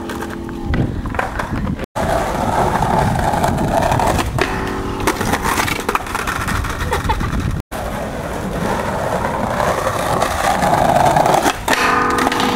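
Skateboard wheels rolling over paving stones and the deck sliding along a round metal rail in boardslides. The sound cuts out completely for an instant twice.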